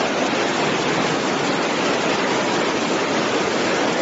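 Floodwater rushing: a loud, even, unbroken noise of water.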